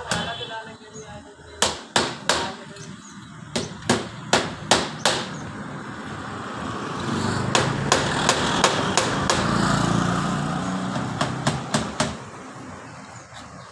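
Workshop knocking: a series of sharp knocks in short irregular runs, with a rush of noise that swells up in the middle and fades again.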